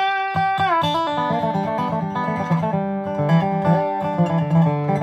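Background music: plucked acoustic guitar in a bluegrass style, with notes that slide up and down in pitch, the first sliding down about a second in.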